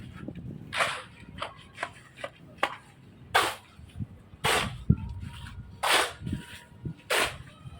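A series of about ten sharp strikes at uneven intervals, each with a short ringing tail.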